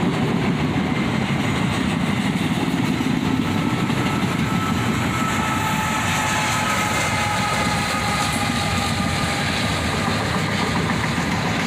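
Freight train of autorack cars rolling past with steady wheel-on-rail noise, as a GE ET44AH diesel locomotive running as mid-train distributed power goes by with its engine running. A faint steady whine rises through the middle of the passage.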